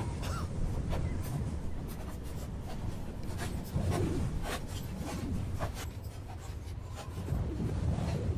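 Horses walking on packed earth: irregular hoof clops and knocks over a steady low rumble.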